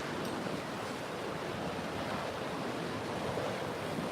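Steady rush of ocean waves and surf, with wind buffeting the microphone.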